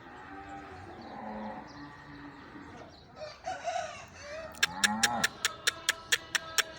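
Farm animals calling: several pitched calls, one rising and falling, then a quick, irregular run of sharp clicks over the last two seconds.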